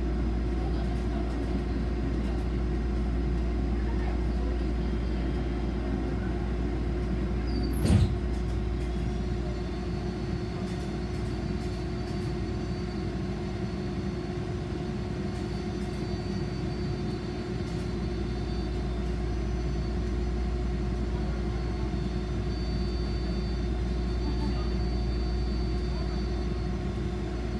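Toyama Chitetsu city streetcar running, heard from inside the car: a steady low rumble with a faint high whine that comes and goes. A single sharp knock sounds about eight seconds in.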